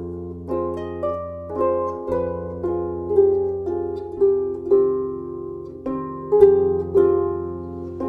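Background music: a gentle melody of plucked notes, about two a second, over a low held bass.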